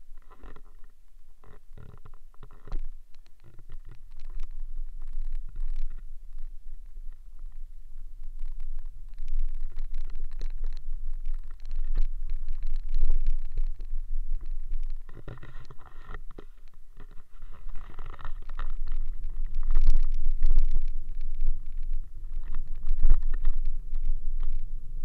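Wind buffeting the microphone of a pole-held camera on a moving mountain bike: a steady low rumble, louder in stretches, with frequent knocks and rattles from the pole and bike.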